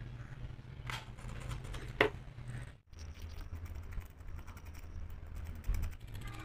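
Faint sounds of leather and hand tools being handled on a wooden board: two short, sharp scrapes about one and two seconds in, then faint scratching, over a low steady hum.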